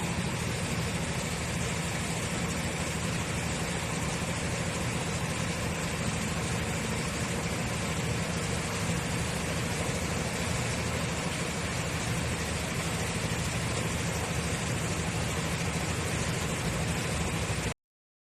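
An electric machine motor running steadily with a low hum, cutting off abruptly near the end.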